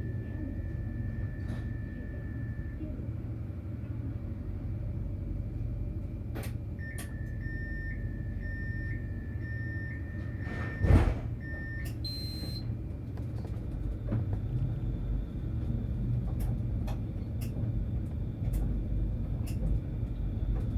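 On board a tram: a low steady running rumble, with a held electronic beep near the start and a run of beeps from about seven seconds in, typical of the door warning signal. A loud thud about eleven seconds in, most likely the doors shutting, is followed by a short high chime; the rumble then grows as the tram moves on.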